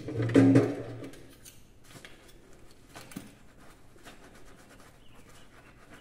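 A short pitched voice sound in the first second, then hand-washing of glasses and a cup at a kitchen sink: soft scattered clinks and rubbing.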